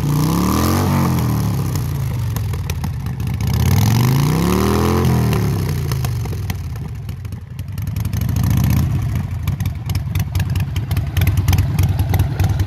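Harley-Davidson V-twin running through a Vance & Hines Big Radius full exhaust system: revved up and back down twice, about a second in and again about five seconds in, then settling to an uneven idle.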